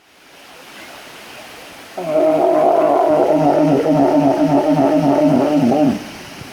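Walrus giving one loud, long wavering call that starts about two seconds in. Its pitch pulses up and down about two or three times a second, then drops away as the call ends after about four seconds.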